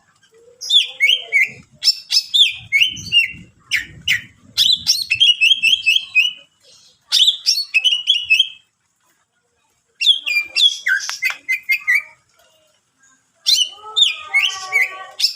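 Cucak ijo (green leafbird) singing loudly in bursts of rapid chattering chirps and falling whistled notes, phrase after phrase with two short pauses, the varied song of a bird in full voice.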